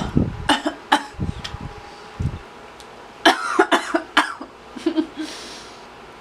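A person coughing: a run of several harsh coughs in quick succession about three seconds in, with a weaker one after. Before them come a few sharp mouth clicks and dull thumps.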